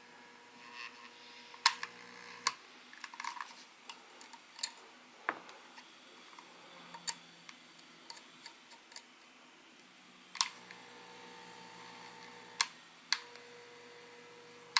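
Aoyama massager giving sharp clicks at irregular moments, with a faint steady whine that switches on and off between some of the clicks: the unwanted noise the device is making.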